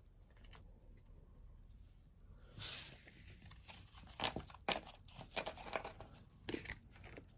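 Faint crinkling and tearing of a foil Pokémon booster pack being handled and torn open. A longer tear comes about two and a half seconds in, followed by several short crinkles.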